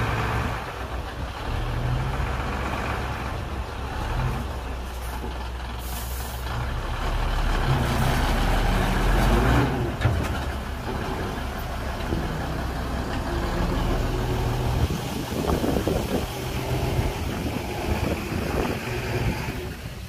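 Heavy diesel engines of a dump truck and bulldozer running, revving up to a peak about nine seconds in. A short hiss about six seconds in and a sharp knock about ten seconds in.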